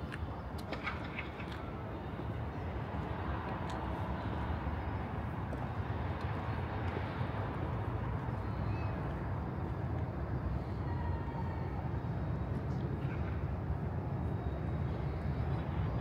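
Steady city ambience: a low rumble of distant traffic, with a few faint clicks in the first few seconds.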